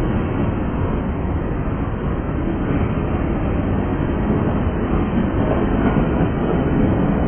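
Freight train cars rolling past close by: steel wheels on the rails making a steady rolling noise, heaviest in the low end.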